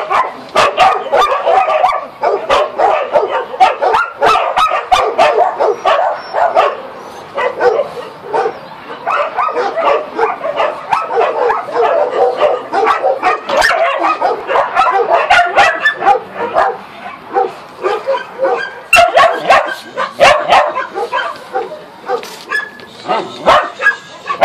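Dogs barking and yipping continuously, the calls overlapping one another, with many sharp strokes mixed in.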